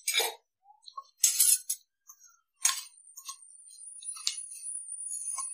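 Steel spoon clinking and scraping against a stainless steel pan as whole spices are stirred in a little oil: a few separate sharp clinks with short pauses between them.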